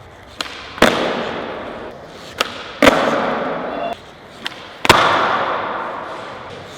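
Skateboard tricks, three times: a light tail pop, then about half a second later a loud landing slam of the board, each followed by wheels rolling and fading away.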